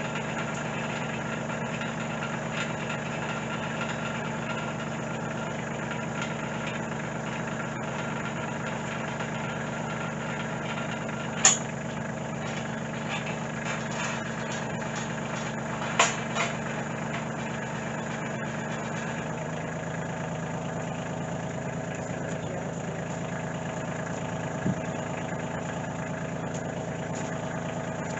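Diesel engine of a piece of heavy equipment idling steadily, its note settling slightly lower about two-thirds of the way through. Two sharp knocks cut through about 11 and 16 seconds in, with a lighter one near the end.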